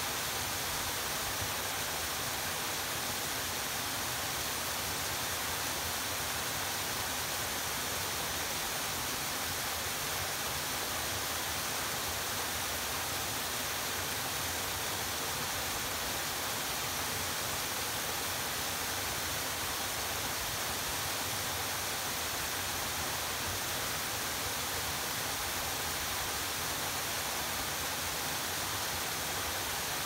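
Waterfall pouring down a rock face into a pool: a steady, even rush of falling and splashing water.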